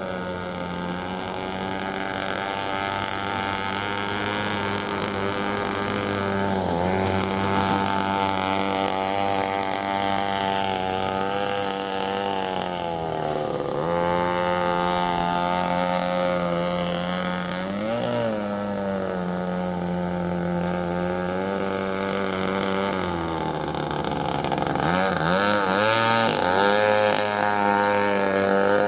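A 21.2 cc Echo string-trimmer two-stroke engine with a 3/4-inch straight pipe, driving a homemade RC boat: a steady buzzing note whose pitch dips and climbs back several times.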